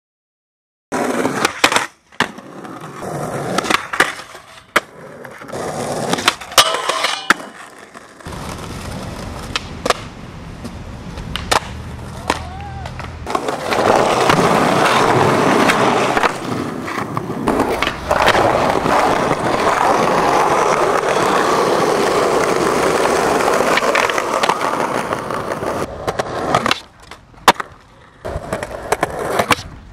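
Skateboard wheels rolling on concrete, with sharp clacks of boards popping and landing. About halfway through there is a long stretch of loud, rough rolling.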